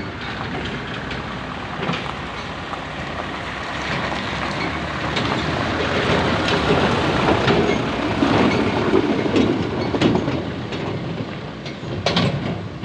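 A heavy dump truck drives past close by on a rough dirt road, its body rattling and its tyres rolling over gravel. It gets louder toward the middle, then eases, with a clunk near the end.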